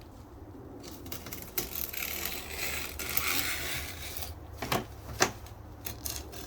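Excess mesh being trimmed off the end of a rack rail: a couple of seconds of rustling cutting noise, then two sharp clicks.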